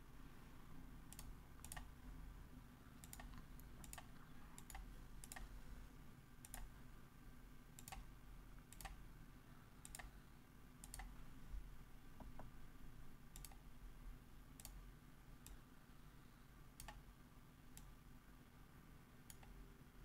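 Faint computer mouse clicks, scattered irregularly at about one a second, over a low steady hum.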